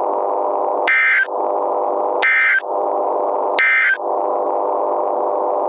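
Emergency Alert System end-of-message data tones: three short bursts of warbling two-tone digital data, about a second apart. A steady droning background tone drops out under each burst, and everything cuts off abruptly at the end.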